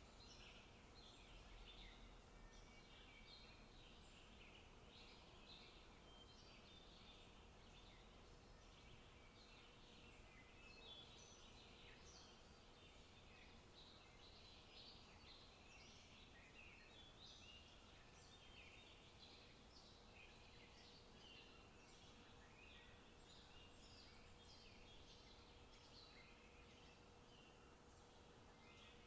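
Faint forest birdsong: several small birds giving quick, overlapping chirps and trills without pause, over a soft hiss, with a faint steady hum underneath.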